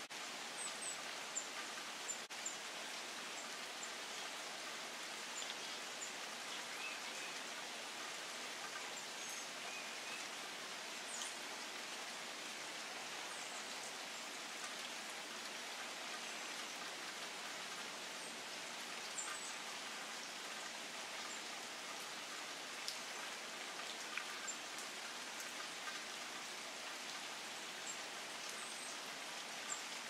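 Steady rain falling on leafy tree foliage, with scattered drips. A few short, faint, high bird chirps come through over it.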